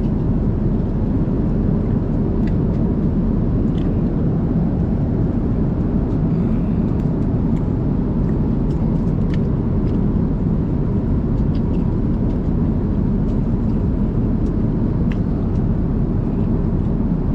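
Airliner cabin noise: a steady low rumble of engines and rushing air, with a few faint clicks.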